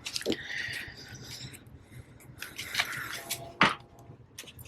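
Thin metal prying tool scraping along the edge of a tablet's glass and frame, two raspy strokes with small clicks, as the glued screen is worked loose.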